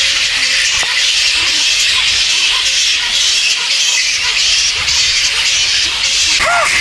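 A roosting colony of flying foxes (large fruit bats) chattering and squealing, a dense, steady, high din of many voices. One clearer rising-and-falling squawk stands out near the end.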